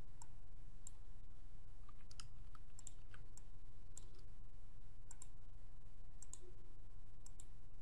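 Computer mouse clicking: about a dozen and a half short, sharp clicks at irregular intervals, many in quick pairs, over a steady low background hum.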